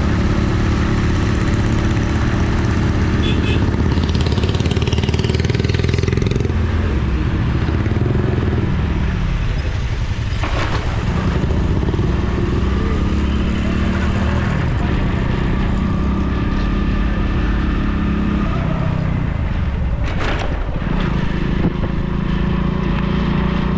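Motorcycle engine running at road speed under a steady rush of wind and road noise; twice the engine note drops and then climbs again as the revs fall and pick back up.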